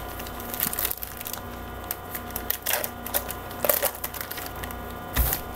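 Topps Heritage baseball card packs and cards being handled: irregular crinkling and rustling of wrapper and card stock, with a few louder crinkles about three, four and five seconds in.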